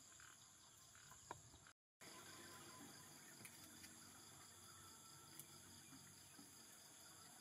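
Faint steady high-pitched insect chorus, broken by a brief dead silence about two seconds in, with a few faint ticks later on.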